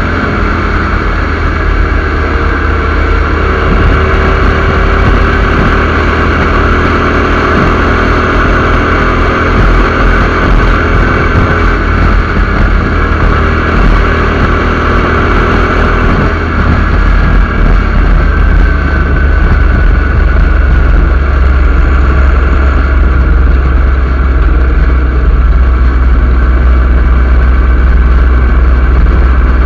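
Wind rushing and buffeting over a motorcycle-mounted camera's microphone at highway speed, with the motorcycle's engine running steadily underneath and a loose shirt flapping in the wind. The wind noise grows a little louder in the second half.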